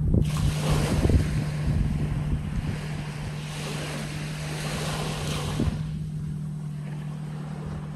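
Small waves washing up a sandy beach and draining back, two swells of surf hiss that rise and fade. Wind buffets the microphone, mostly in the first few seconds, over a steady low hum.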